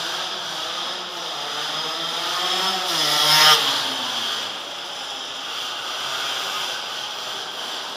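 Small motorcycle engine revving up as the bike passes close by, its pitch rising to a loud peak about three and a half seconds in and then dropping as it rides away. Another engine keeps running steadily underneath.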